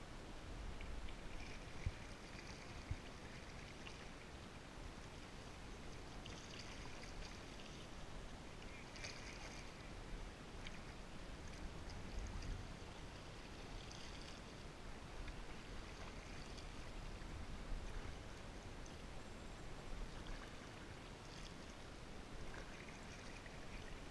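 Kayak on the water: soft water sounds with brief splashes from paddle strokes every few seconds.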